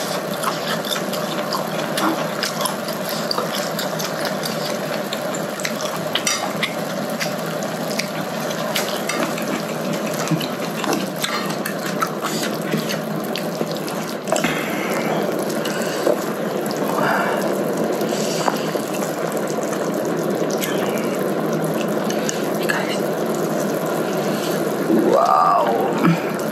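Broth boiling in an electric hotpot, a steady bubbling with many small pops and clicks, mixed with chewing and chopsticks working in the pot. A short hum from her voice comes near the end.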